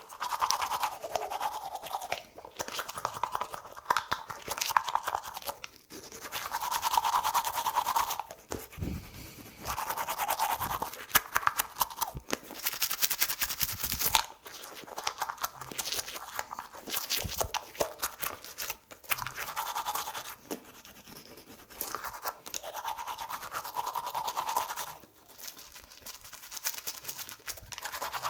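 Teeth being brushed with a toothbrush: rapid wet scrubbing strokes in bouts of a few seconds, with short pauses between.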